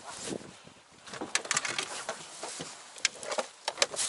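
Irregular clicks, taps and knocks, with rustling, as a landing net with a freshly caught fish in it is handled in a small boat.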